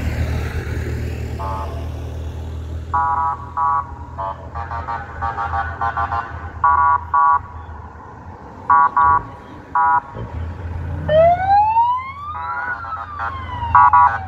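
Trucks in a parade convoy sounding their horns, more than a dozen short blasts, over the low running of their engines. About eleven seconds in, a siren wails once, rising and then falling.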